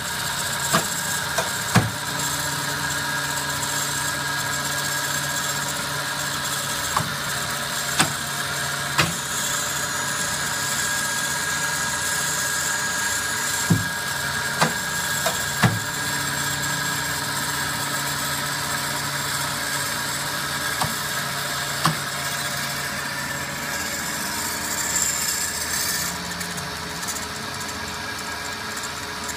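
Amada HA-250 horizontal metal-cutting band saw running with a steady mechanical hum, broken by about ten sharp clicks and knocks scattered through. A low steady tone in the hum drops out for a while and comes back.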